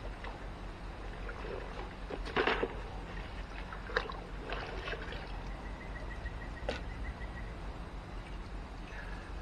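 Water sloshing and dribbling in a bucket as a piece of steel is rinsed of stripping acid, with a louder splash about two and a half seconds in and a couple of sharp knocks.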